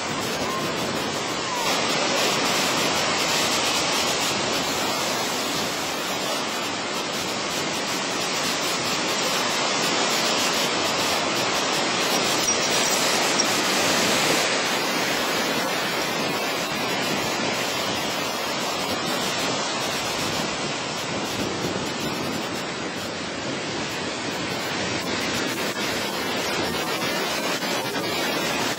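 Ocean surf: a steady rushing wash of breaking waves that slowly swells and eases.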